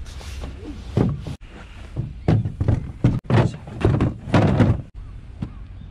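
Fishing gear being set down in a small plastic boat: a run of irregular knocks and thuds of objects against the plastic hull, most of them between about two and five seconds in.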